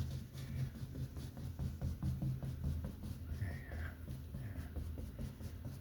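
Paintbrush dabbing acrylic paint onto canvas, a run of faint soft taps over a steady low hum. A short high whine sounds about three and a half seconds in.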